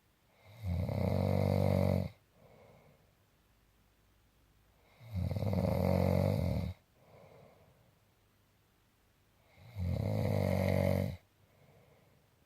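A sleeper snoring: three loud snores, each about a second and a half long and some four seconds apart, each followed by a short, fainter breath.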